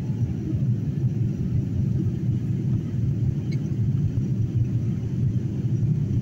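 Steady low rumble of a jet airliner's cabin in flight: engine and airflow noise heard from a window seat.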